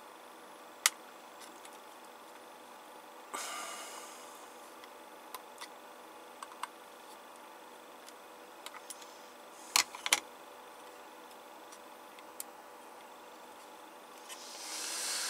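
Flush side cutters snipping excess wire on a circuit board: a sharp click about a second in and two loud clicks close together about ten seconds in, with a short rustle around three seconds in and small ticks between.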